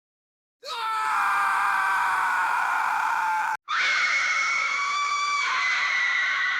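Horror ghost scream sound effect: a long, high-pitched scream starts about half a second in, breaks off suddenly about three and a half seconds in, and a second scream starts at once and holds on.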